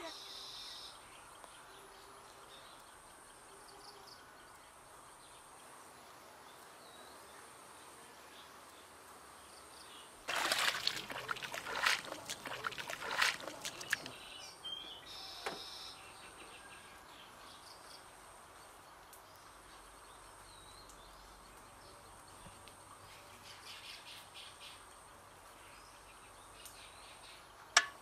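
Quiet rural ambience with faint bird calls. About ten seconds in, a few seconds of wet chopping and splashing as a hoe digs into waterlogged paddy-field mud. A single sharp knock near the end.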